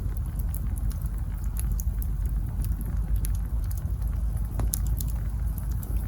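Campfire of burning wood crackling: scattered sharp pops and snaps over a steady low rumble, with one louder pop about three-quarters of the way through.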